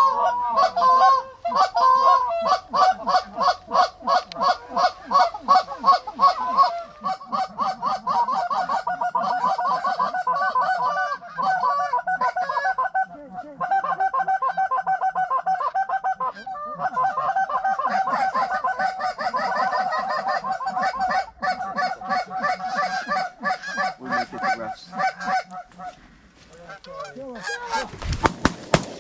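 Canada goose honking: rapid, overlapping honks that keep up for most of the stretch and thin out near the end, followed by the first sharp shotgun blasts.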